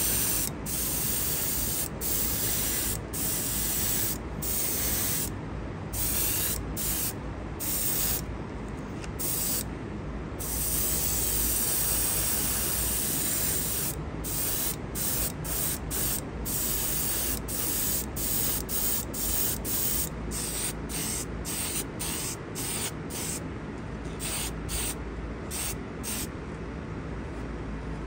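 Airbrush spraying paint onto a diecast model truck body: a steady hiss of air and paint that cuts off briefly many times and starts again, with a longer unbroken spray around the middle. A steady low hum runs underneath.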